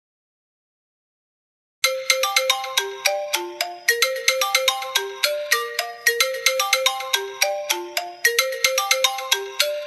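Smartphone incoming-call ringtone: a quick melody of bright plucked, bell-like notes, about four or five a second. It starts about two seconds in after a silent gap and repeats a short phrase about every two seconds.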